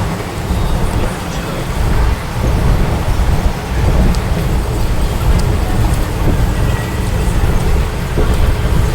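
Steady low rumble and road noise of a moving vehicle, heavy in the bass and fairly loud throughout.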